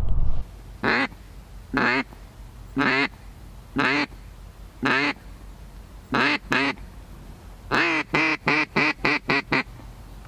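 Hen-mallard quacks blown on a duck call: five single quacks about a second apart, a quick pair, then a fast run of about eight quacks.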